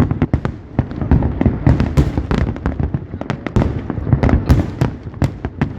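Aerial fireworks going off in rapid, irregular succession: many sharp bangs and crackles overlapping over a continuous low rumble.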